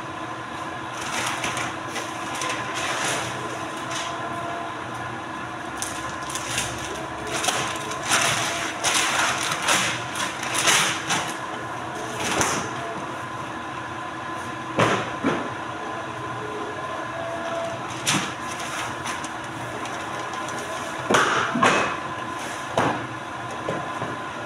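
Polar 115 guillotine paper cutter running with a steady hum, while stacks of paper are handled at its table: irregular rustling and knocks, busiest in the first half and again near the end.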